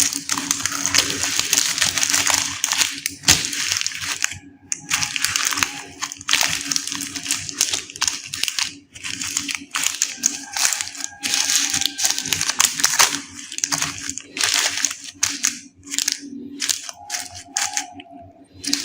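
Plastic candy wrappers and packaging crinkling and rustling as they are handled and opened by hand, in irregular bursts with short pauses.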